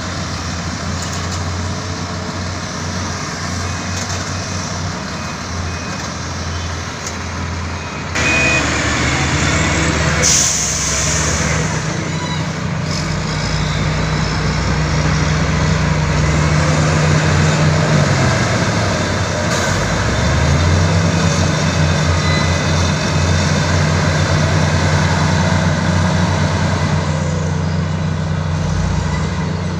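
Diesel engines of heavy earthmoving machinery at work: the engine revs up about eight seconds in and runs hard, drops briefly past the middle and picks up again. A short hiss of air comes about ten seconds in.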